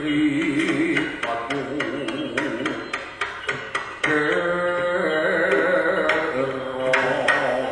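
Live jaranan gamelan accompaniment: repeated hand-drum strikes under a wavering, ornamented melody line. The melody swells louder and more continuous about four seconds in.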